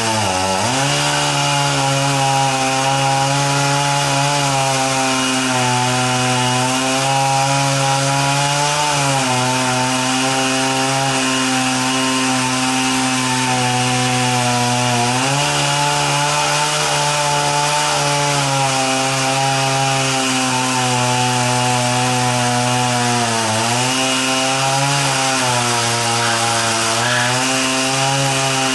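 Chainsaw running continuously as it carves into a dead tree trunk, its engine pitch dipping briefly about four times under load.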